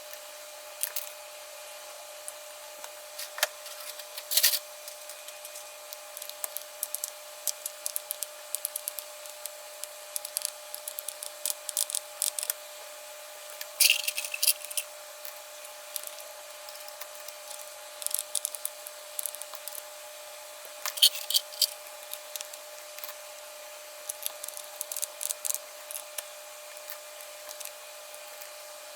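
Typing on a Cidoo ABM066 Alice-layout custom keyboard with Matcha switches: runs of quick key clicks broken by short pauses, with a few louder strokes around 4, 14 and 21 seconds in.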